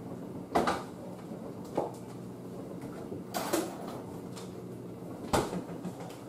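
Off-camera kitchen doors, the freezer's among them, being opened and shut: four separate knocks and thumps spaced a second or more apart, over a low steady hum.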